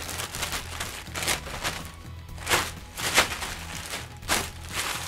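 Plastic mailer bag crinkling in several short rustles as it is handled and pulled open, over quiet background music.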